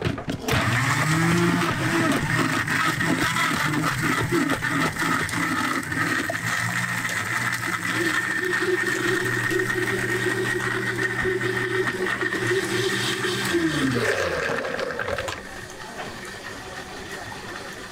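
Electric blender starting up and running steadily for about thirteen seconds, blending a muskmelon milk drink, then spinning down with a falling pitch as it is switched off.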